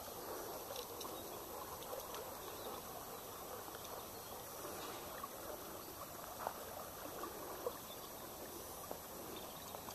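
Shallow river running over a gravel bed: a faint, steady burble of moving water, with a couple of small ticks partway through.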